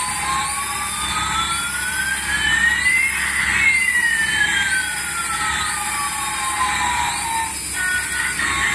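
Slow electronic siren-like sweeps: one tone glides up while another glides down, the two crossing about three seconds in, over a steady high hiss.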